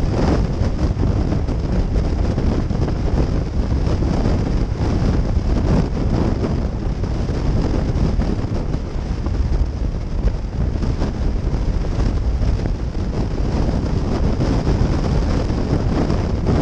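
Steady wind rush over the microphone of a motorcycle cruising at highway speed, with engine and road noise underneath.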